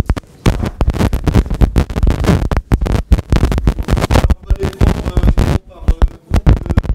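Clip-on lapel microphone being handled and fitted to clothing: loud, rapid, irregular crackling and scraping as the mic rubs against fabric, with a short lull near the end.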